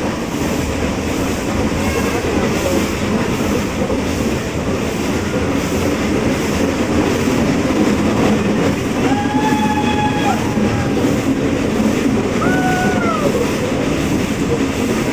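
Nilgiri Mountain Railway train running with a steady rumble of wheels and engine. Two short whistle toots come about nine and twelve seconds in.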